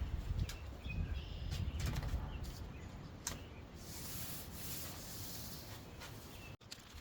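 Patio furniture parts being handled during assembly: scattered clicks and knocks with low thumps, then a stretch of hissy rustling. It cuts off suddenly near the end.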